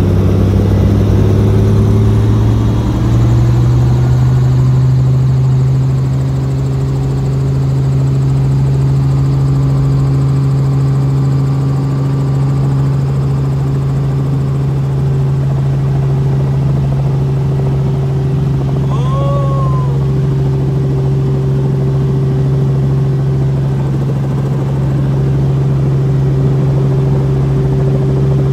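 Robinson R44 Clipper II helicopter's six-cylinder piston engine and rotor running on the ground, heard from inside the cabin: a steady low drone that steps up in pitch about three seconds in and then holds steady.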